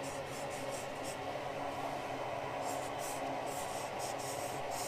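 Felt-tip Sharpie marker rubbing along the edge of a wooden pattern piece in a run of short strokes, busiest in the second half, colouring the edge as a layout mark. A steady hum runs underneath.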